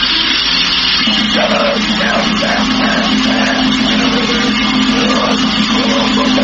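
Grindnoise: loud, distorted noise music with a dense, hissing wall of sound, a low held drone and a choppy, stuttering figure in the middle that comes in about a second in.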